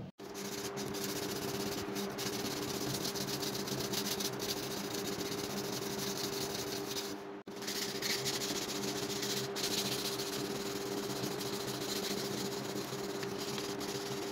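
Hand sharpening stone rubbed back and forth along the steel edge of an axe head cut from a circular saw blade, a steady rasping hiss over a low steady hum. The sound cuts out for an instant just after the start and again about halfway through.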